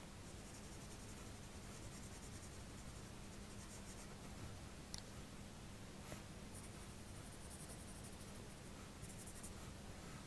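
Coloured pencil scratching faintly across drawing paper in short strokes that come and go, over a low steady hum, with one sharp tick about halfway through.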